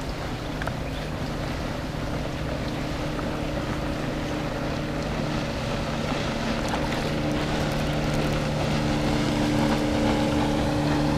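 Boat motor running with a steady hum, over a wash of wind and water noise, growing slightly louder in the second half.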